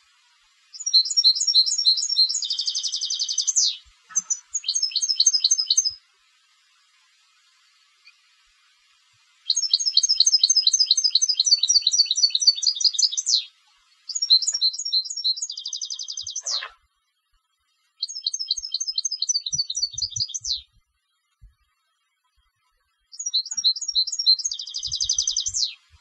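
European goldfinch (contest-bred jilguero) singing: six phrases of rapid, high twittering notes, several ending in a dense trill, separated by short pauses.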